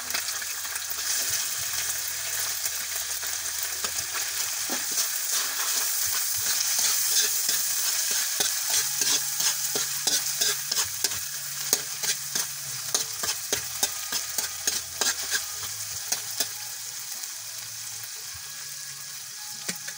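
Corned beef and onions sizzling in a hot pan while a spatula stirs and scrapes them, with rapid sharp scraping clicks against the pan through the middle stretch; the frying eases off near the end.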